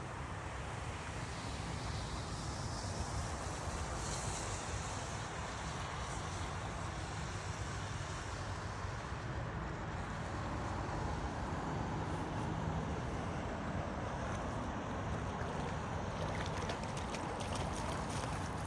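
Steady low outdoor rumble with no distinct events, the kind made by wind on the microphone.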